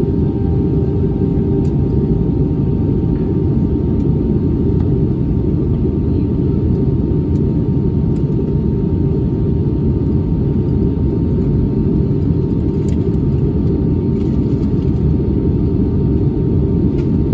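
Steady cabin noise inside an Airbus A320-232 airliner on its approach descent: a loud, even rumble of airflow and its IAE V2500 engines, with a faint steady hum over it.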